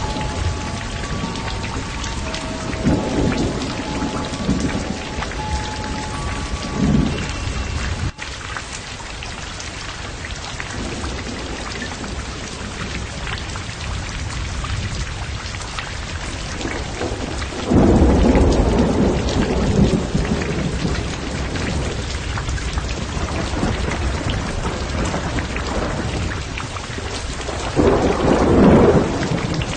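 Steady rain with several rolls of thunder, the loudest about 18 s in and again near the end. Faint held music notes sound under the rain in the first few seconds, and the sound changes abruptly about 8 s in.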